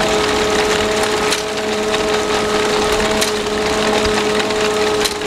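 Vintage tractor-drawn sheaf binder working through standing oats: a steady mechanical clatter of the cutter bar, reel and drive chains over a running tractor engine, with a steady whine and a sharp click about every two seconds.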